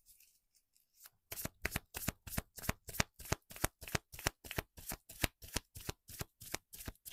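A tarot deck being shuffled by hand: a steady run of quick card slaps and flicks, about five a second, starting about a second in.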